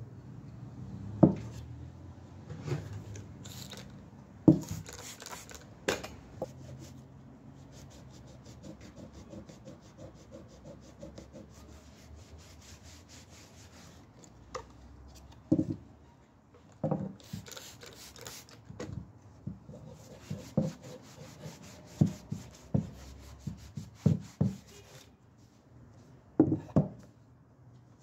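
A cloth rubbing over a bark-edged wooden tree-trunk slice as it is dusted. About a dozen sharp wooden knocks are heard as the slice is handled and set down.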